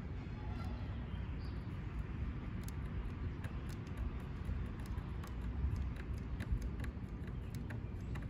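Outdoor background: a steady low rumble with scattered light ticks and taps.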